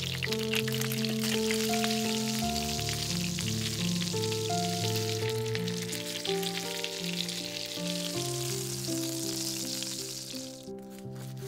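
Oil sizzling and crackling around folded tortillas frying in a pan, over background music; the sizzle stops near the end while the music carries on.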